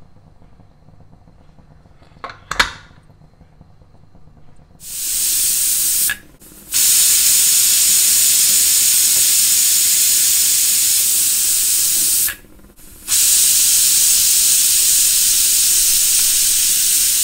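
Stovetop pressure cooker whistling: a couple of light knocks, then from about five seconds in a loud, steady hiss of steam forcing past the weighted valve, in three long spells with short breaks. The cooker is at pressure and venting, the whistles counted to time the cooking.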